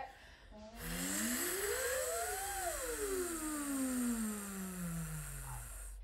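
Two voices singing a breathy freedom slide on 'va': the pitch glides up to a peak about two seconds in, then slides slowly down low until near the end, with a steady airy hiss of breath through the tone.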